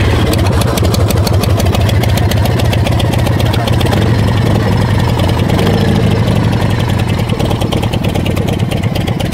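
Harley-Davidson Evolution V-twin engine of a 1993 custom chopper running at a steady idle, just after being started, with an even pulsing beat.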